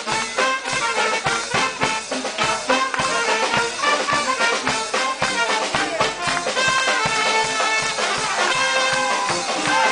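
Brass band playing a lively tune: saxophones, trumpets and trombones over a sousaphone, with a steady bass-drum beat.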